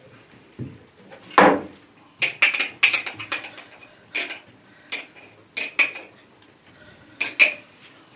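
A metal utensil clinking and scraping against a glass jar while scooping out sauerkraut, in a run of quick sharp clinks, with a heavier knock about a second and a half in.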